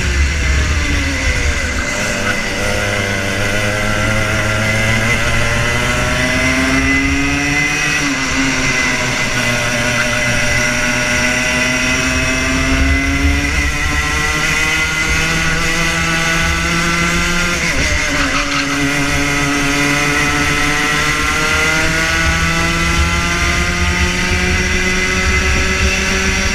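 Rotax Junior Max 125cc two-stroke kart engine at racing speed. The revs drop sharply three times under braking for corners, near the start, about a third of the way in and about two-thirds of the way in, then climb steadily again on the throttle.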